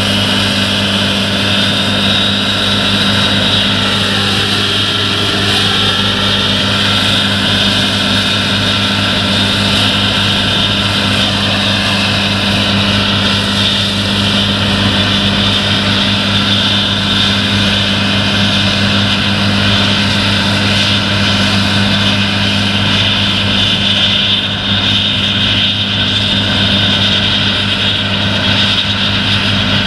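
Tracked John Deere combine harvester running under load while cutting wheat: a steady engine drone with a loud high whine over it.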